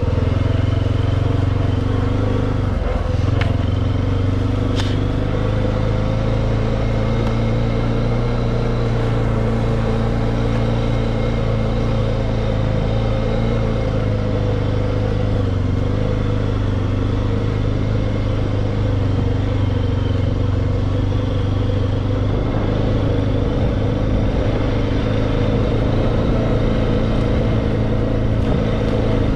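Four-wheeler (ATV) engine running steadily as it rides along at an even pace, with a couple of sharp clicks a few seconds in.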